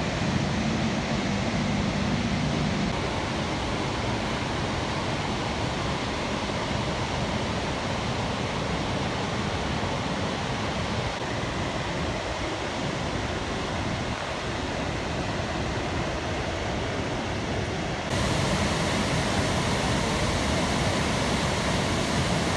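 A large, many-tiered waterfall rushing, heard as a steady, even roar of falling water. It steps up louder a little over three-quarters of the way through.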